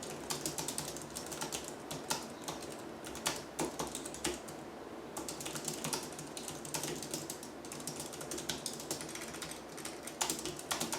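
Typing on a computer keyboard: quick runs of key clicks and keystrokes with a brief pause about halfway through.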